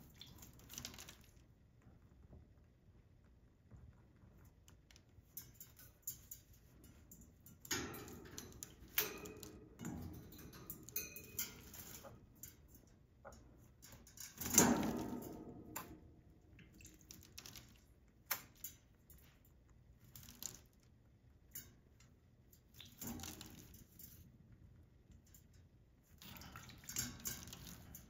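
Sun conure bathing in a shallow stainless steel bowl of water: irregular bursts of splashing as it dips and flutters its wings, with the loudest splash about halfway through.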